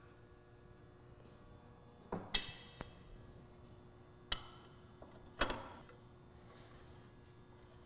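Metal clanks and clinks from a metal wrench being fitted onto a valve's removable seat and body, about six knocks in small groups, each ringing briefly. The loudest come about two and a half and five and a half seconds in.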